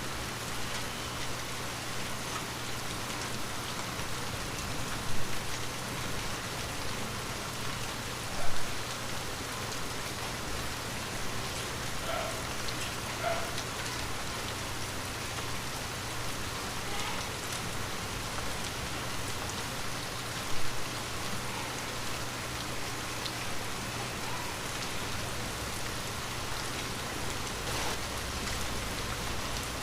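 Light rain falling steadily, pattering on surfaces, with three brief louder drop-like hits about five, eight and twenty seconds in.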